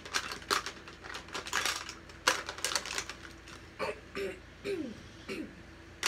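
Quick clicks and clatter of plastic makeup cases and tools being handled and sorted through, thick in the first three seconds and then more scattered, with a few short murmured voice sounds near the end.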